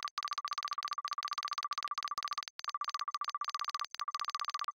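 Text-typing sound effect: a rapid run of short, clicky electronic beeps, one per letter as on-screen text types out. It breaks off briefly about two and a half seconds in and again near the end.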